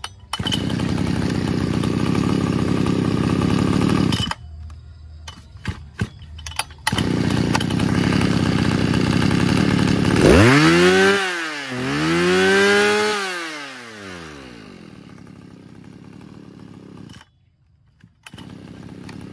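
Mitsubishi TL261 26 cc two-stroke brush-cutter engine pull-started, catching at once on a half pull of the cord. It runs for about four seconds, cuts out, and runs again. It is then revved up and down twice by hand, settles to a steady run, and is switched off suddenly near the end.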